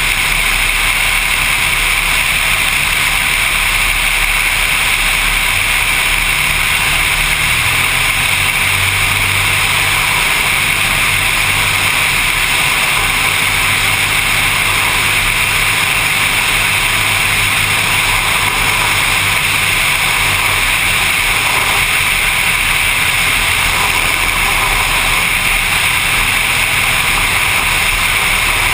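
Seaplane's propeller engine running steadily: a loud, even drone whose low note shifts slightly about seven seconds in.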